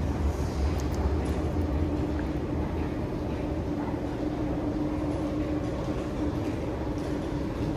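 Singapore MRT train running, heard from inside the carriage: a steady low rumble, heaviest in the first couple of seconds, with a thin steady hum over it.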